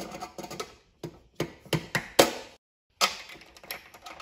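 Metallic clicks and knocks from a hand tool and fittings being worked against a steel square electrical box: a run of irregular sharp hits with short pauses.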